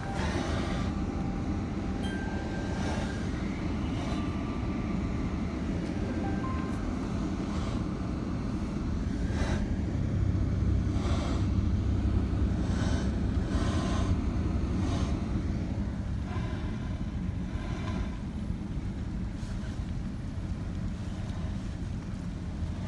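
Low, steady rumble of a car's engine and tyres heard from inside the cabin while driving slowly, with faint music playing on the car radio.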